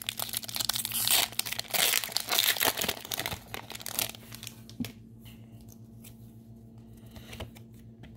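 Foil wrapper of a Pokémon card booster pack crinkling and tearing as it is ripped open, loud for about four seconds. Then it goes much quieter, with a single light click shortly after and faint handling of the cards.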